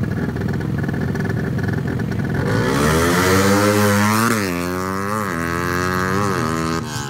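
Tuned racing motorcycles, a bored-out Yamaha Vega and a ported Suzuki Satria FU, held at high revs on the start line and then launching about two and a half seconds in. They accelerate hard away through the gears, the pitch climbing and dropping back at each shift about once a second, and grow fainter near the end.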